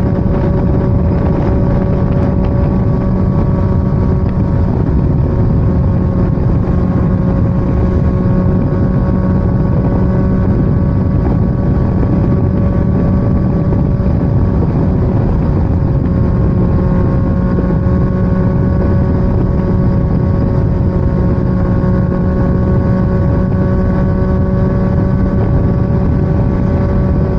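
Motorcycle engine running at a steady, even pitch while riding, with wind noise rushing over the camera microphone.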